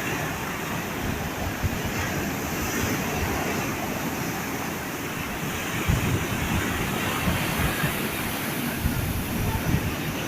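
Sea waves washing ashore in a steady surf, with gusts of wind buffeting the microphone.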